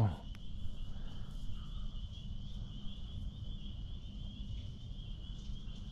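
A steady, high-pitched chorus of crickets at dusk, over a low, even rumble.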